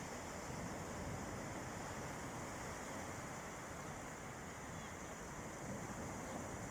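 Calm sea surf washing on a beach, heard as a steady, even rush.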